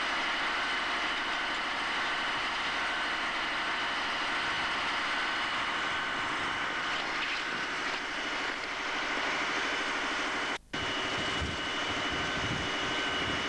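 Fire engine's engine running steadily, with a constant high whine over it. The sound cuts out for a split second near the end, then carries on.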